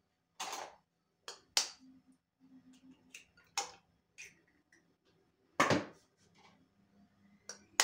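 Eggs being cracked into a plastic blender beaker: a series of sharp taps and knocks of shell and handled items, about eight in all, the loudest about five and a half seconds in.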